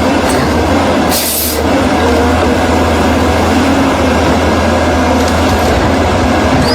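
Heavy diesel land-clearing machinery running steadily under load, with a short hiss about a second in.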